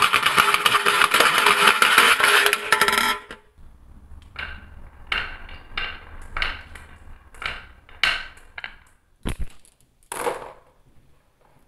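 Marbles pouring off a wooden wavy slope and clattering into a metal-lined toy bin, a dense rattle that stops suddenly about three seconds in. Then single marbles rolling down a wooden S-shaped track and knocking against the marbles already queued there, a click roughly every half second.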